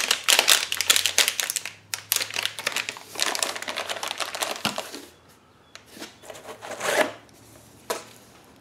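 Packaging being handled: dense crinkling and rustling as a 3D printer controller board in its plastic bag is slid back into a foam packing insert, easing off after about five seconds into a few softer rustles and clicks as parts with wires are lifted from the foam.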